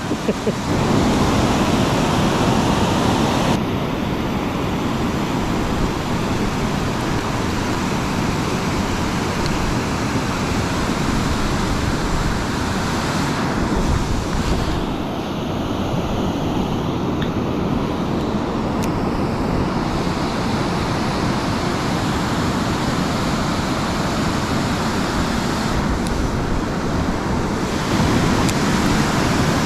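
Steady rush of fast-flowing water in the outflow of a power-generating dam.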